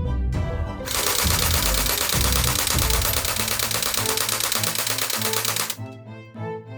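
A toy gun firing a long rapid automatic burst, a fast rattle lasting about five seconds that starts about a second in and stops near the end, over background music.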